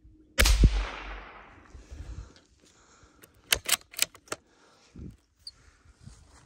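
A single gunshot about half a second in, its echo dying away over a second or so. About three seconds later comes a quick run of five or six sharp clicks.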